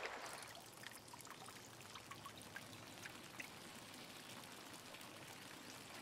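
Faint shallow river water running and trickling over stones, with scattered small drips and splashes.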